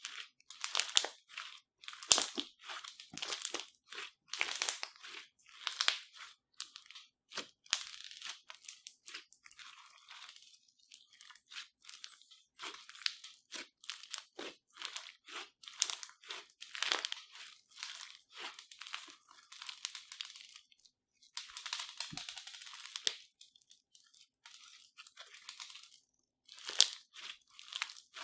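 Bead-filled crunchy slime being squeezed and kneaded by hand, giving an irregular string of short crunches and crackles.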